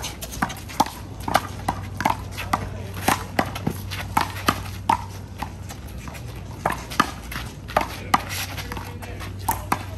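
Rubber handball being struck in a rally: sharp smacks of the ball off players' hands, the wall and the ground, irregular at about one or two a second, with a short gap about halfway through.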